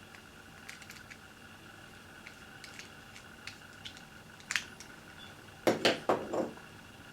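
Light metallic clicks and clatter of small tools and wire being handled, with a sharp click about four and a half seconds in and a short run of louder clattering knocks near the end.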